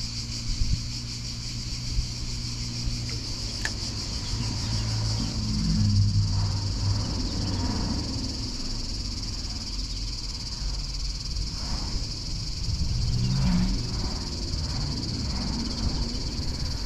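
Steady high-pitched chorus of insects, with a low rumble swelling underneath at times.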